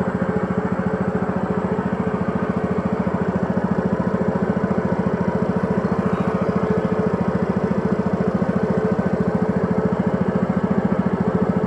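Small boat engine running steadily at an even speed, with a fast regular pulse, as a narrow wooden boat motors up a channel.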